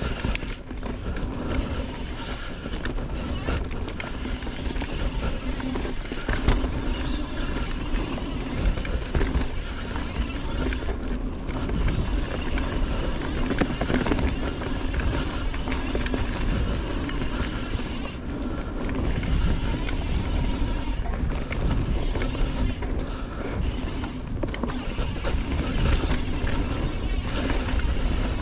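Evil Following mountain bike rolling fast down a dirt singletrack: tyre noise on the trail, rattling of the bike and chain over bumps, and heavy wind rumble on the action-camera microphone.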